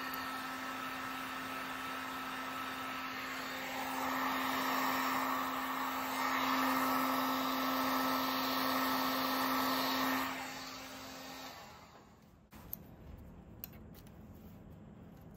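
Electric heat gun running, a steady rush of air with a motor hum, growing louder about four seconds in and then switched off and winding down around eleven seconds in. A few light clicks of a hose fitting being handled follow near the end.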